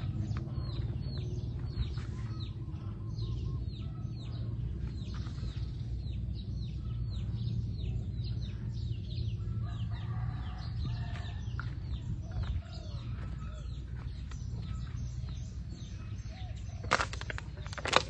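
Farmyard chickens clucking and calling with many short, high, falling chirps, and a longer call about ten seconds in, over a steady low rumble. Two sharp knocks come near the end.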